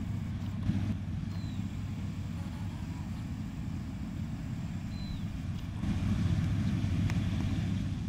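Massey Ferguson 310 combine harvester running while harvesting: a steady low drone of engine and threshing machinery, a little louder near the end. Two brief high chirps sound over it, about a second and a half in and about five seconds in.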